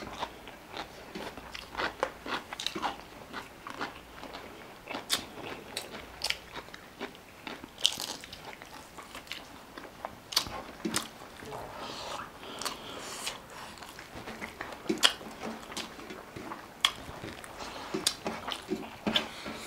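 Close-miked eating: irregular crisp crunches and bites with chewing in between.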